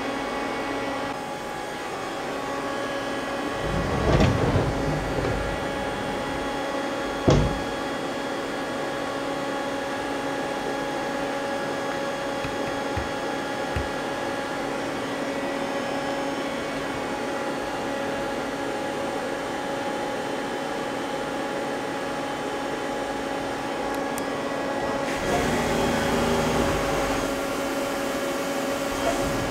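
Mazak CNC lathe running a thread-milling cycle: a steady machine whine made of several fixed tones, with two short thumps about four and seven seconds in. The sound changes about 25 seconds in.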